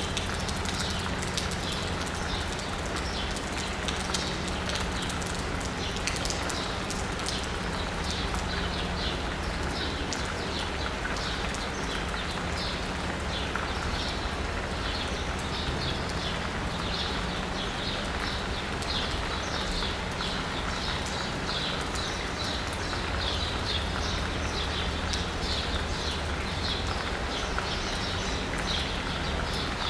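Steady rain pattering on asphalt and a roof, with birds chirping over it in quick, repeated notes that grow busier after the first few seconds. A low, steady hum of distant city traffic runs underneath.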